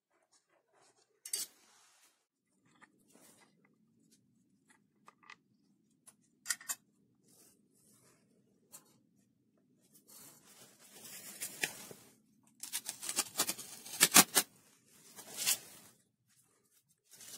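Masking tape peeled off a cast-iron lathe carriage and crumpled: a rustling scrape with sharp crackles over the last several seconds. Before it come a few scattered light clicks of metal parts and tools being handled.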